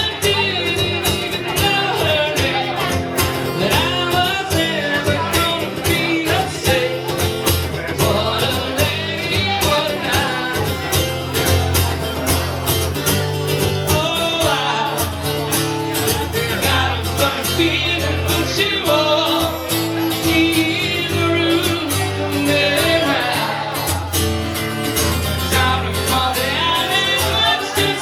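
Live country-rock band music: a singing voice over guitar, bass and a steady beat.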